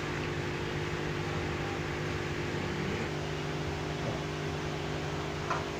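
A steady mechanical hum with several low tones in it, with a light click near the end.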